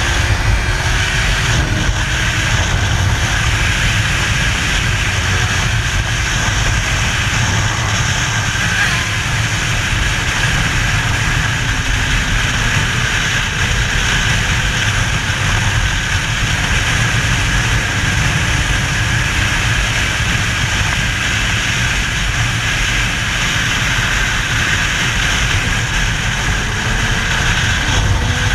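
Motorcycle riding fast: heavy wind rush over the microphone with the engine running underneath, its pitch shifting near the start and the end.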